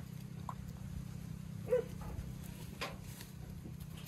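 Goat giving one short, soft call about two seconds in, over a faint steady low hum.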